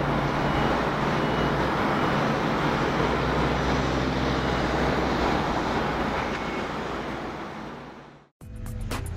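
Engine noise of a Boeing 777-300 jet airliner climbing away after takeoff, a steady rumble that fades over the last couple of seconds and cuts off abruptly, followed by background music starting near the end.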